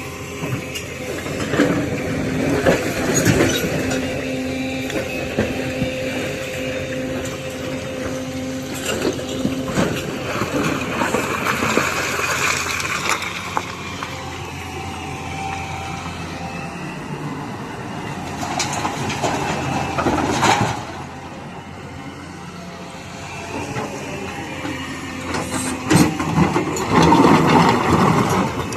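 Hydraulic excavator's diesel engine running under load with a steady drone, over irregular knocks and scrapes of rock. It drops quieter about two-thirds of the way through, then works up loud again near the end.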